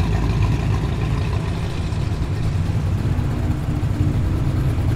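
Classic first-generation Ford Mustang engines running at low revs as the cars roll slowly past, a loud, deep, steady exhaust note with no revving.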